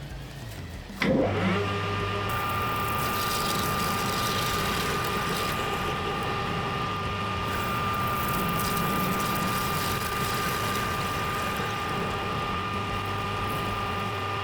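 Metal lathe switched on about a second in, then running steadily with a high whine.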